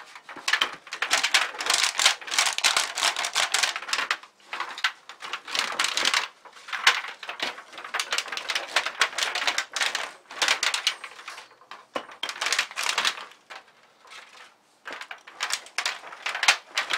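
Wooden rolling pin rolled back and forth over a thin aluminium oven-liner sheet on a wooden board, the foil crackling and clicking with each stroke, with short pauses between strokes. The rolling flattens the ragged burrs around drilled air-inlet holes and curves the sheet.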